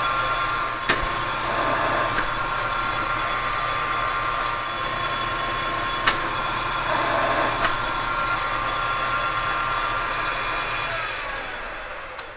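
South Bend lathe running steadily through a thread-cutting pass on a steel shaft, with three sharp clicks along the way. Near the end its pitch slides down and it winds down as it is switched off.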